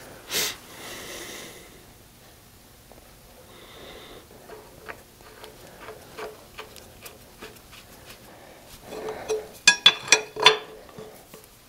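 Small metal clicks as the crankshaft pulley bolt on an Isuzu 4BD1T diesel is turned in by hand, then several loud, ringing metal clinks near the end as a large combination wrench is fitted onto the bolt. A single sharp noise with a short hiss comes just after the start.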